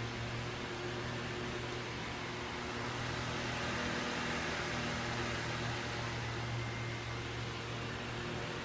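Steady low machine hum with an even hiss over it, unchanging throughout: background room noise from a running appliance.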